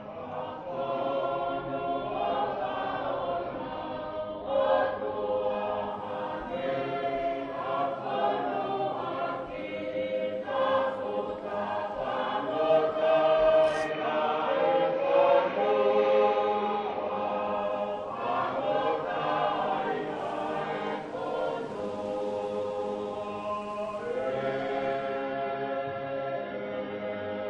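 A choir singing, several voices together throughout.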